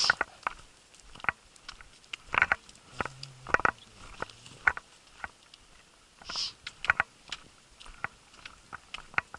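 Irregular knocks and clicks of footsteps and trekking poles on a wooden boardwalk, with a couple of short sniffs or breaths near the microphone.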